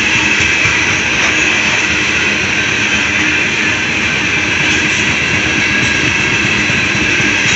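Loaded coal cars of a freight train rolling past: a loud, steady noise of steel wheels running on the rails.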